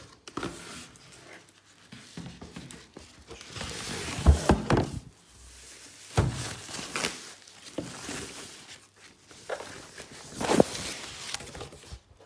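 Cardboard box handled and unpacked, the unit inside pulled out of its plastic and foam wrap: irregular rustling and scraping with a few dull thunks, the strongest about four seconds in.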